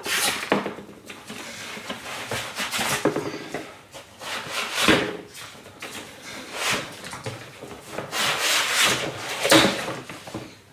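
Cardboard shipping box being unpacked by hand: flaps folded back and a boxed laptop slid out against cardboard and foam, a run of irregular scraping and rubbing with a couple of sharper knocks.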